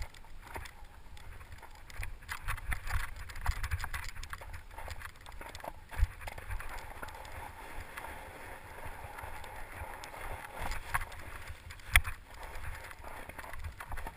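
Mountain bike ridden over a rough trail of snow, leaves and roots: continuous clatter and rattle from the bike, with tyre noise. Two sharp knocks come about six and twelve seconds in, the second the loudest.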